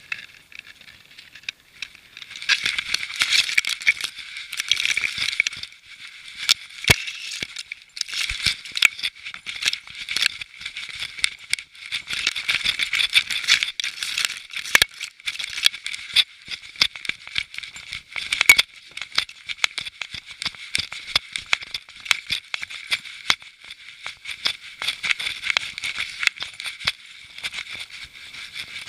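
Close, scratchy rustling and rattling from a camera strapped to a moving dog, as grass and fur brush against the housing. Many sharp clicks run through it.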